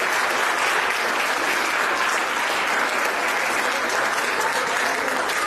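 Audience applauding, a dense, steady applause.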